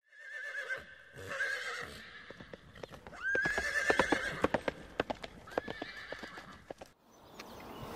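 A horse whinnying several times over the quick beat of galloping hooves. The hoofbeats fade out about seven seconds in.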